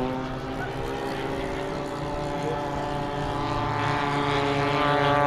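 Radio-controlled model warbird flying overhead, its motor and propeller giving a steady pitched drone that grows louder as it comes closer.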